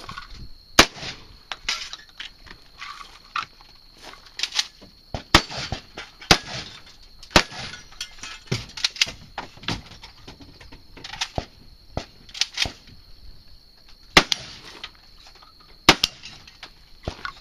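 Shotgun firing buckshot in a string of about a dozen shots, spaced irregularly a second or two apart, with smaller clicks between them.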